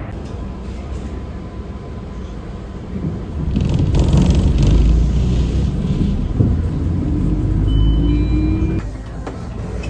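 Subway train running with a loud low rumble that swells about three seconds in. Near the end a rising motor whine and a few brief high squeals come in before the rumble drops off sharply.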